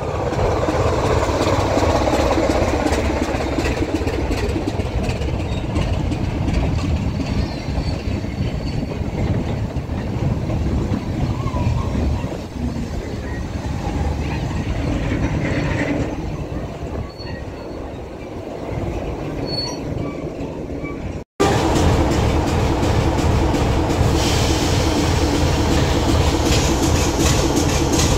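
BR Class 24 diesel locomotive's engine running as it hauls a train of goods wagons slowly past, the wagons' wheels rolling over the rails. About two-thirds of the way through the sound cuts to the locomotive's engine running steadily close by.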